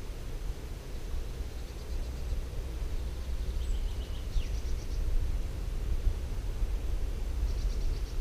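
Woodland ambience: a steady low rumble, with a small bird's short high trills about halfway through and again near the end, and one brief falling whistle.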